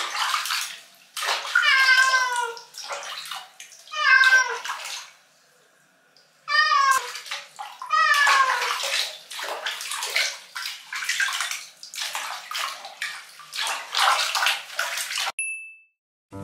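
Water sloshing and splashing in a plastic tub as a wet domestic cat is washed by hand. The cat meows about four times, each a drawn-out meow falling in pitch. Near the end the sound cuts off and a short chime sounds.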